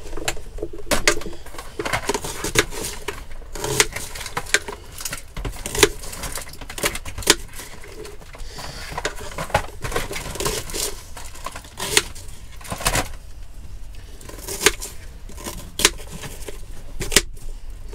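Knife chopping an onion on a plastic chopping board: irregular sharp taps of the blade striking the board.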